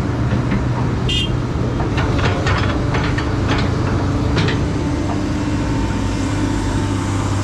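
Heavy diesel construction machinery running steadily with a low hum. Between about one and four and a half seconds in there is a series of sharp metallic knocks and clanks, and a brief squeal about a second in.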